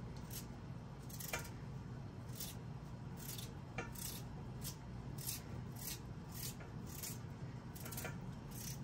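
Knife slicing through raw vegetables, a series of short crisp cutting strokes at about three a second, irregularly spaced, over a steady low hum.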